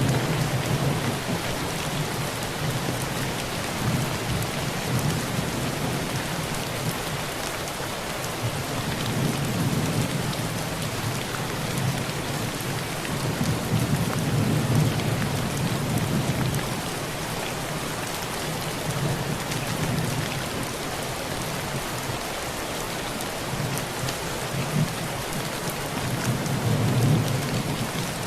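Heavy rain drumming steadily on a tin roof, with low rolls of distant thunder rumbling in and fading away several times.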